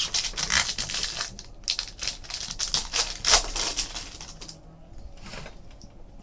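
Foil trading-card pack wrapper crinkling and tearing as it is ripped open by hand, a quick run of sharp crackles that thins out after about four seconds.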